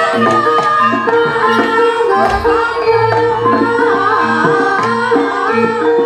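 Live jaranan accompaniment music: a Javanese gamelan-style ensemble with kendang hand drums and pitched percussion playing a busy, rhythmic melody over a long held note, with a deep drum hit about two seconds in.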